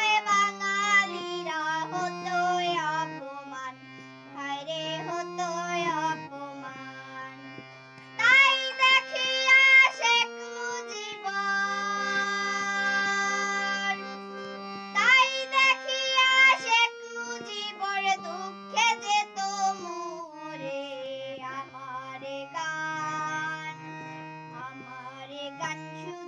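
A girl singing a Bengali song while accompanying herself on a harmonium, its reeds holding steady chords and bass notes under her voice. Her voice rises to louder, higher phrases about eight and fifteen seconds in.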